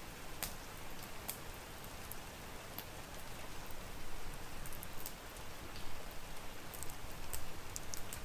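Steady rain with scattered sharp crackles and pops from a wood fire, more frequent in the second half.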